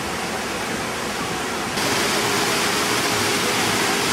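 Whitewater churning in a river-raft ride's rapids channel, a steady rush that gets louder and brighter about two seconds in.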